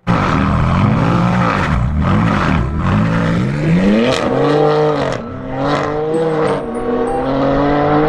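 BMW M3 (G80) with an Akrapovič exhaust, its twin-turbo straight-six revved up and down several times, then pulling away under hard acceleration, the pitch rising and dipping at each gear change.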